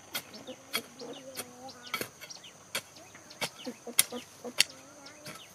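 Steady high-pitched insect chirring, with many sharp, irregular clicks and knocks and a few low, wavering calls in between.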